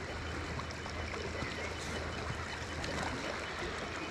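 River water running and trickling steadily.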